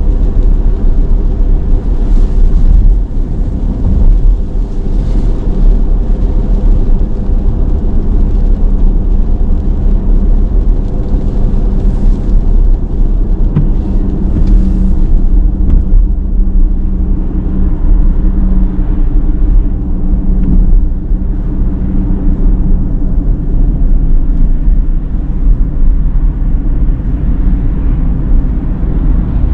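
Cabin sound of a Cadillac Lyriq electric SUV driving on wet streets: a steady low road rumble with a faint hum, and brief hissing swells a few times in the first half.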